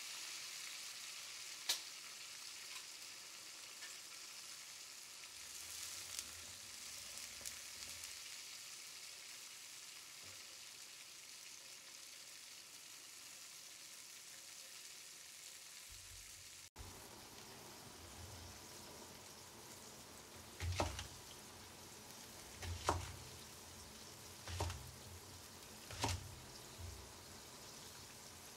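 Crawfish cooking in a wok of bubbling chili-oil broth: a steady sizzling hiss that slowly fades. About two-thirds of the way in, it gives way to a cleaver chopping on a wooden cutting board, five chops a second or two apart.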